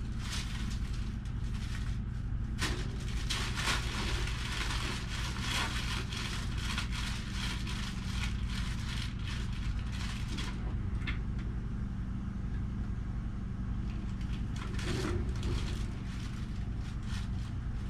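A steady low hum, with irregular clicks and rattles over it that crowd the first ten seconds and come back about fifteen seconds in.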